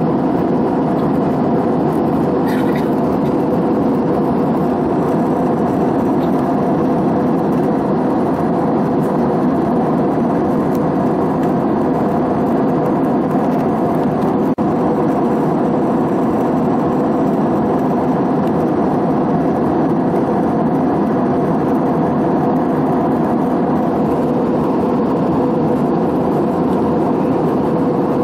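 Steady cabin drone of an Airbus A320-family jet airliner in flight: engine and airflow noise, with a constant hum running through it. There is a momentary dropout about halfway through.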